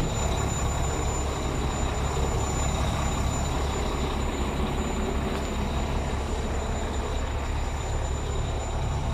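Truck's diesel engine idling steadily, a low even rumble.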